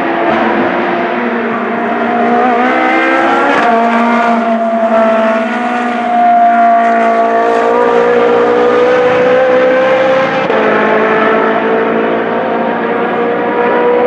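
Ferrari 458 Challenge race car's naturally aspirated V8 accelerating past and away at full throttle, the pitch climbing through each gear with three quick upshifts, at about four, seven and a half and ten and a half seconds in.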